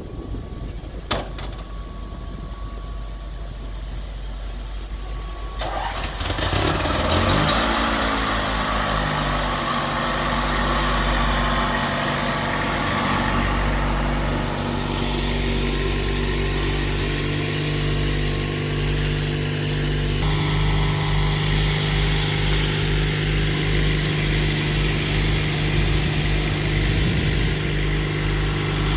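Fire truck's 7.0-litre Ford gasoline V8 running low at first, then speeding up about six seconds in and holding steady at raised speed to drive the fire pump, with a steady hiss of water and pump noise over it.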